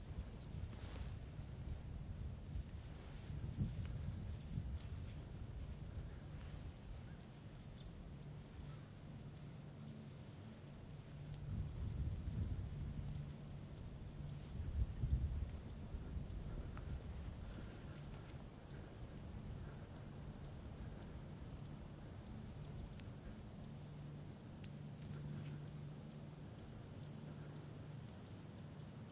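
Outdoor woodland ambience: a bird's short, high chip note repeated steadily, about one and a half times a second, over a low rumble that swells twice in the middle.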